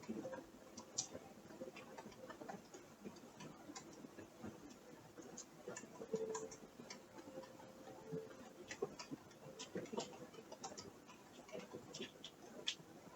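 Faint, irregular creaks and ticks from the building's structure, scattered through the whole stretch with no steady rhythm. A faint hum comes and goes underneath.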